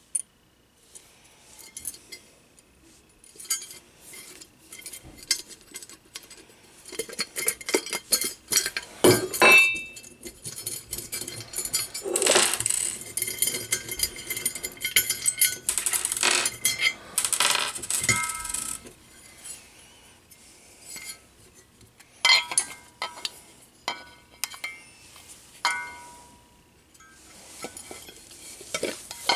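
Handling noise from a camera wall-mount bracket with a junction box being turned over and fitted together by hand: irregular clicks, knocks and clinks of the housing and small parts against each other and the table. A denser stretch of rubbing and scraping comes about halfway through.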